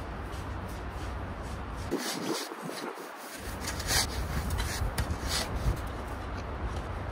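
Irregular scraping and rubbing of digging in packed snow around a stuck SUV's wheels, over a low steady rumble.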